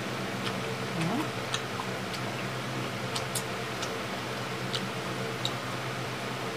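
Scattered, irregular mouth clicks and lip smacks of people chewing food, over a steady background hum.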